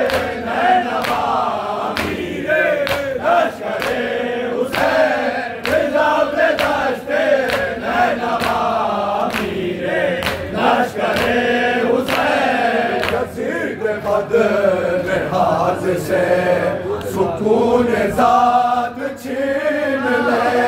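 A group of men chanting an Urdu noha (Shia lament) in unison, with sharp, rhythmic slaps of hands beating on chests (matam) marking the beat.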